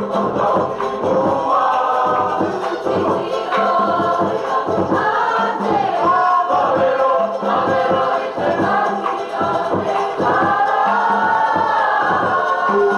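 Cook Islands dance song: a group of voices singing together in chorus over a steady, evenly repeated percussion beat.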